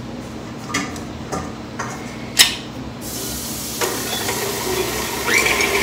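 A few light kitchen clicks and knocks, then a steady hiss from about halfway. Near the end an electric stand mixer starts up with a quickly rising whine that settles at a steady pitch, beating butter.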